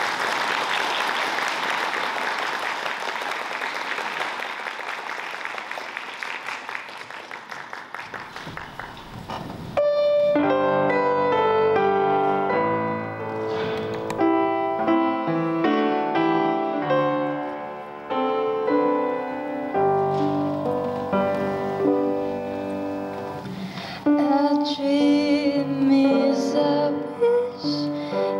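Audience applause that fades out over about nine seconds, then a piano starts playing. Near the end a singer's voice comes in over the piano.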